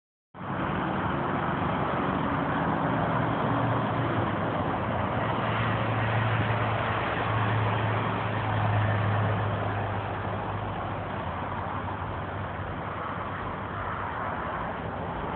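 A motor vehicle engine idling with a low steady hum over a constant wash of traffic noise; the hum eases about ten seconds in.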